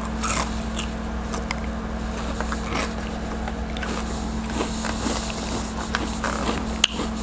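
Close-up crunching and chewing of a breadcrumb-coated fried onion ring, scattered crisp crunches and mouth sounds over a steady low hum.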